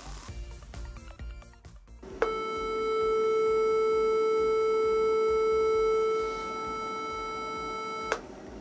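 A 440 Hz sine test tone played through small loudspeakers driven by a homemade 20 W all-discrete class-B transistor amplifier. It starts abruptly about two seconds in, with a row of evenly spaced overtones above it, drops somewhat in level a little after six seconds and cuts off shortly before the end.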